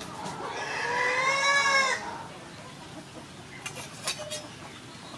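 A rooster crowing: one long call that rises and falls in pitch and ends about two seconds in. A few light clicks follow near the end.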